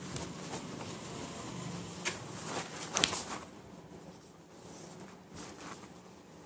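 Whiteboard duster rubbing across the board, with two sharp clicks about two and three seconds in. It then goes quieter, with faint marker strokes on the whiteboard as a number is written and circled.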